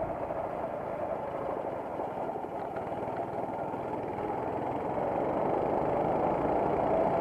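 Racing kart engine heard from on board, running steadily, then climbing in pitch and loudness over the last couple of seconds as it accelerates.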